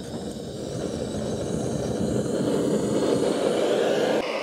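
Handheld gas blowtorch burning with a steady rushing roar, growing louder, with a slight dip about four seconds in. It is heating a rusted, seized suspension fitting to free it.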